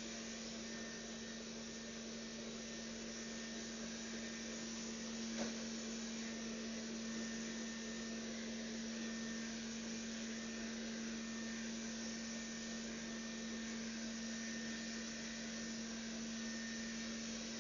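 Dreame L10 Prime robot vacuum running: a steady suction-motor whir with a constant low hum, and one brief click about five seconds in.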